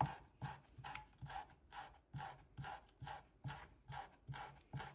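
Chef's knife finely slicing kaffir lime leaves on a wooden cutting board: light, even knife taps on the board, about two to three a second.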